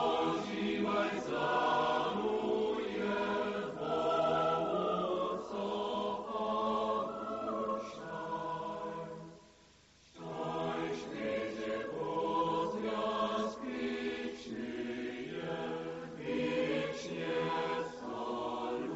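A choir singing in several voices, breaking off briefly about halfway through, then starting again.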